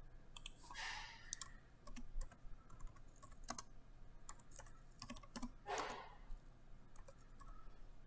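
Computer keyboard keys clicking in scattered keystrokes as a short caption is typed. There are also two short breath-like rushes of noise, about a second in and near six seconds.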